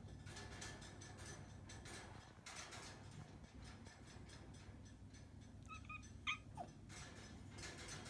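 Calico kitten giving a few short, high mews about six seconds in, the last the loudest and falling in pitch, over faint rustling and light clicks.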